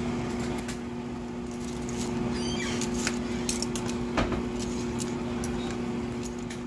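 Pot of water at a rolling boil as spaghetti is pushed down and stirred with metal tongs, the tongs clinking against the stainless steel pot several times, loudest about four seconds in. A steady low hum runs underneath.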